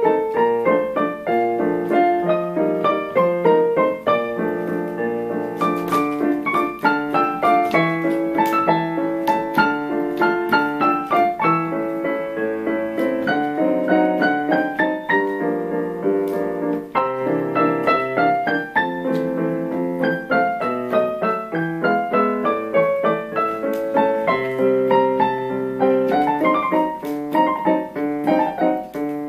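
Four-hand piano duet played on a digital piano, with a continuous flow of melody and accompaniment notes.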